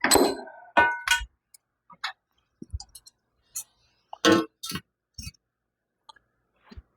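Steel T-post clanking and clinking against a vise as it is worked. There are a series of separate sharp metal knocks, and the first strikes near the start ring briefly.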